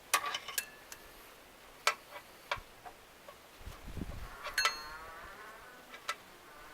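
Hand-handling of a synthetic winch rope on a winch drum: scattered sharp clicks and taps, a low thud about two-thirds of the way in, then a short rasping rub of the rope with a faint ringing tone.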